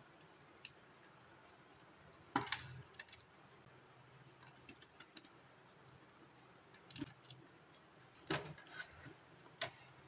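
Scattered light clicks and knocks as gloved hands handle wires and the plastic lid of an electrical enclosure, fitting leads to the indicator lamps mounted in the lid. The two loudest knocks come about two seconds in and again near the end.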